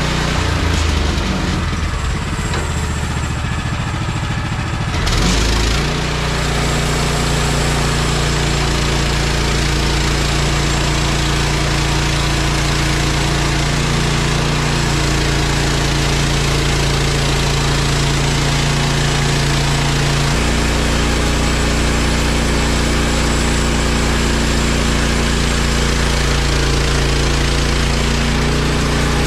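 Gasoline engine of a Woodland Mills HM130 MAX portable band sawmill running. About five seconds in, it settles into a steady higher running note, and its tone shifts again about twenty seconds in.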